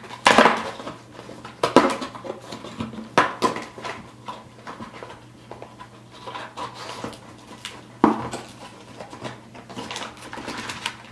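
Cardboard trading-card hobby box being opened and its packs handled on a desk: scraping and rustling of cardboard and card packs, with several sharp knocks, the loudest about a second and a half in and another about eight seconds in.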